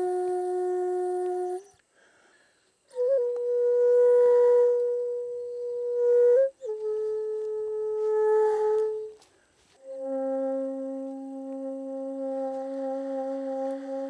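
Daegeum, the Korean transverse bamboo flute, playing a slow melody of long held notes, each lasting two to four seconds with short pauses between them. The last note is the lowest and slides up as it ends.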